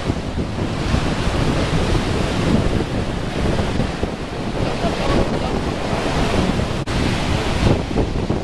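Rough sea surf breaking and washing up a sandy beach in a continuous surging wash, with wind buffeting the microphone and adding a heavy low rumble.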